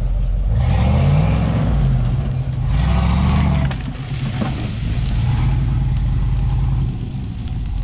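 Truck engine revving up twice, then running steadily at higher revs.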